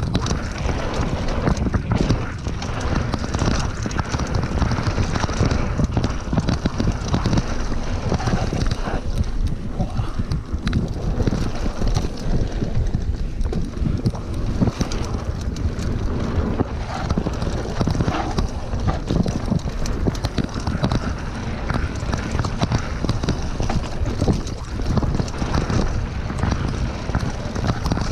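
Mountain bike riding fast down a dirt forest trail: wind buffeting the microphone over the rush of tyres on dirt, with constant small rattles and knocks from the bike over bumps.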